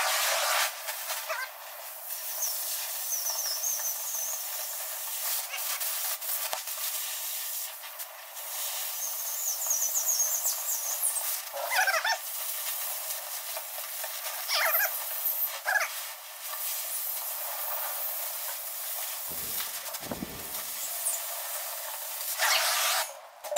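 Oxy-fuel cutting torch hissing steadily as it burns through thick steel plate, with a few brief dips and clicks along the cut.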